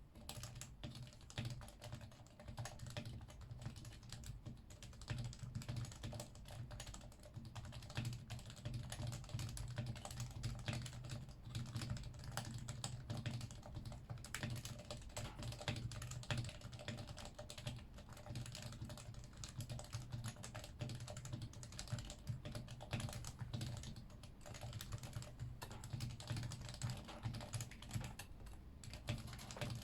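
Continuous fast typing on a Yui660c keyboard with stock 45 g Topre electrostatic capacitive switches and stock keycaps: a rapid, dense run of soft keystrokes, with a few brief pauses.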